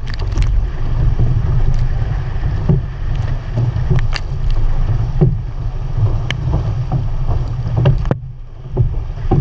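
Outrigger canoe under way: wind buffeting the microphone, water splashing against the hull, and the crew's paddle strokes catching the water about once a second. There is a brief lull in the wind near the end.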